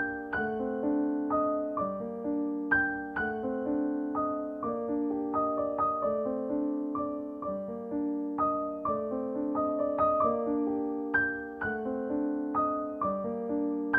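Background piano music: single notes struck one after another and left to ring, in a repeating melody.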